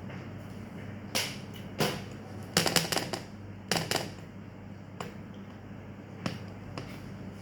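A series of sharp clicks and knocks from objects being handled, with a quick cluster of several about two and a half seconds in, over a steady low electrical hum.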